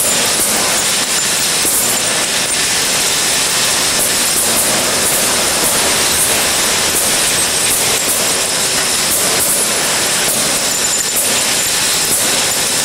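RSE-50 X-ray spectral ore separator running: a steady, loud machine hiss and rumble, with many small clicks and rattles of ore lumps moving along its grooved metal chute.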